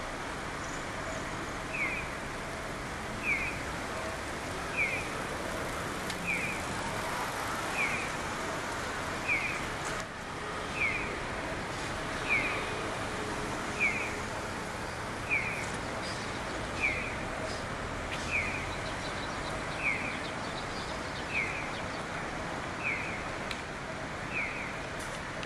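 A short high chirp repeating at a very even pace, about every second and a half, over steady traffic noise.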